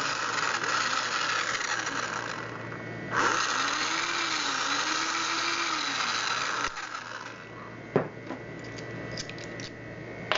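Modified power drill used as a screwdriver, running in two long spells with its motor pitch rising and falling, as it backs screws out of a door knob lockset. After it stops there is a sharp knock and a few light clicks of metal lock parts.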